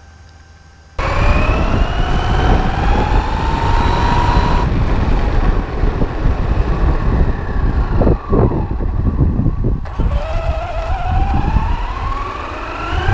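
RC car's electric motor whining as it accelerates, the pitch rising steadily, twice, over a loud rough rumble of the ride, starting suddenly about a second in. A few sharp knocks come between about eight and ten seconds in.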